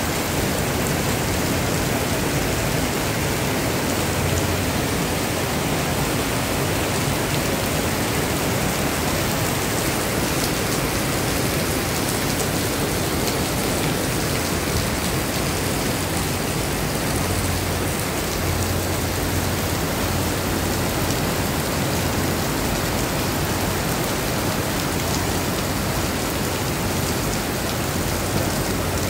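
Heavy rain pouring onto wet pavement, a dense, even hiss that holds steady without letup.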